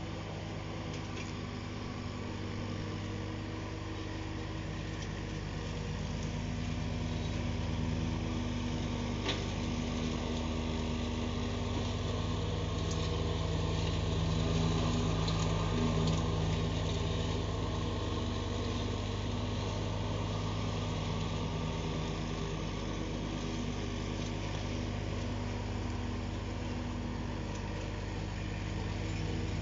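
Engine of a Steiner tractor mowing with a front-mounted mower deck, running steadily. It grows louder about halfway through as the tractor comes near, then eases off a little as it moves away.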